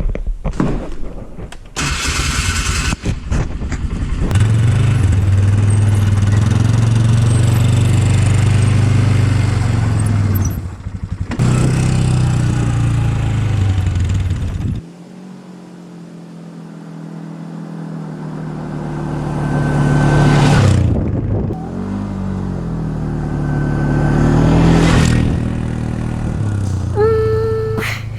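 2012 Polaris Sportsman 500 HO ATV's single-cylinder four-stroke engine running and revving in a string of short clips cut together. In the second half the engine climbs in pitch twice under throttle. A music track starts near the end.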